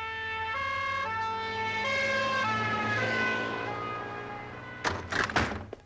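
An emergency vehicle's two-tone siren sounding its alternating high-low call, about one change every 0.7 s. It grows louder, then eases as its pitch sags slightly in passing. Near the end there are a few loud, sharp bursts.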